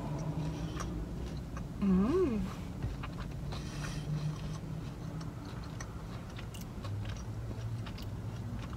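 A person chewing a mouthful of soft biscuit with small wet clicks of the mouth, and a short hummed 'mmm' that rises and falls in pitch about two seconds in.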